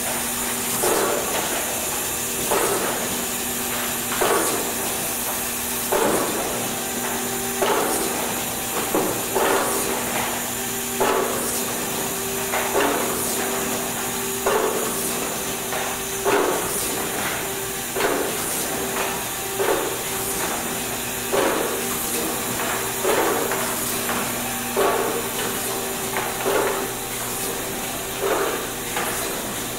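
Markem rotary pad-printing machine running as it imprints golf balls: a regular knock about every second and a half to two seconds, with lighter clicks in between, over a steady hiss and low hum.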